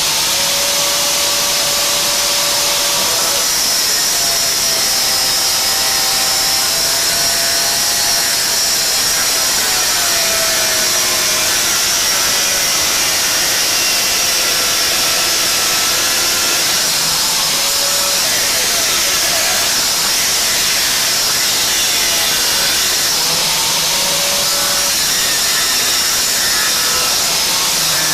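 Electric angle grinder running continuously at a steady level, with a whine that shifts in pitch now and then.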